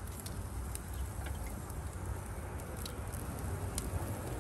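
Raw shell-on shrimp being laid onto a hot gas grill's grate, giving soft, wet contact sounds and a few scattered crackles over a steady low rumble.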